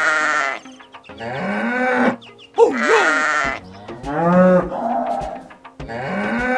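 Cattle mooing, about six short calls in a row, some rising and falling in pitch.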